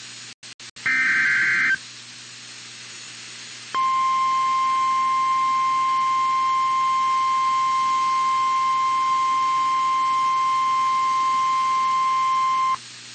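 NOAA Weather Radio alert for a severe thunderstorm warning. It begins with one short buzzing burst of the digital alert header and a pause of about two seconds. Then the single steady warning alarm tone sounds for about nine seconds and cuts off abruptly.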